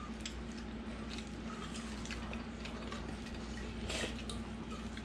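Quiet meal-table sounds: scattered soft clicks and taps of hands and spoons against plates and bowls, with a louder tap about four seconds in, over a steady low hum.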